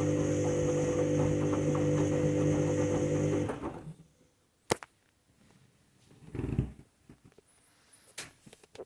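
Candy washing machine's drum motor running during the 60-degree main wash, a steady hum that stops about three and a half seconds in. A sharp click follows, then a short low thump and a few small clicks near the end.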